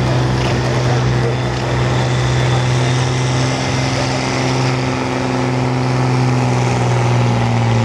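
Massey Ferguson 8160 tractor's diesel engine running hard under full load as it drags a weight-transfer sled in a tractor pull, a loud steady drone that holds its pitch.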